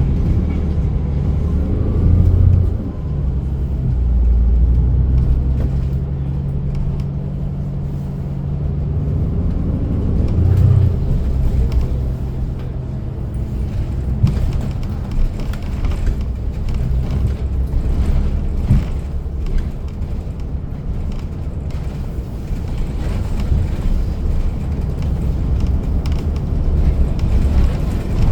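City bus driving, heard from inside the passenger cabin: a steady low engine drone and road rumble, with the engine's hum clearest in the first ten seconds and then giving way to a rougher rumble of tyres and body.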